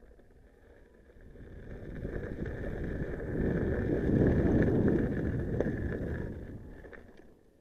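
Riding noise on a gravel path: a rumble of wind on the microphone and tyre on gravel that swells, peaks about halfway through, and fades away near the end.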